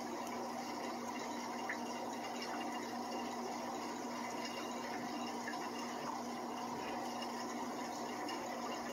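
Aquarium filter running: a constant rush of moving water over a steady hum.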